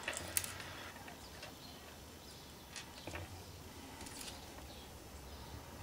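Faint handling noise: a few scattered light clicks and taps from small objects being moved about.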